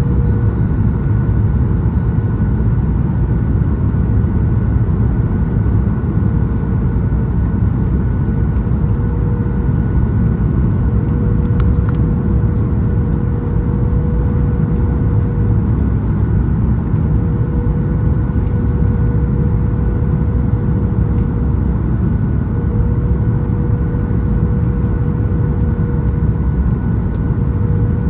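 Steady cabin noise of a Boeing 737-8 MAX on final approach: a strong low rumble of engines and airflow, with a faint even hum over it.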